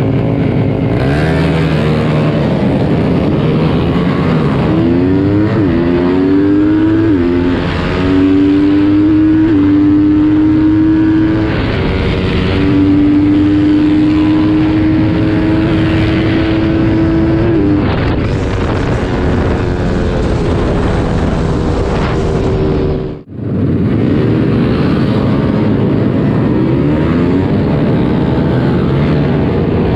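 Yamaha MX King race bike's single-cylinder four-stroke engine, bored up to 177cc, heard from on board while riding. The engine note climbs and drops back several times as it is revved through the gears, then holds a steady pitch; the sound cuts out for an instant a little past the middle.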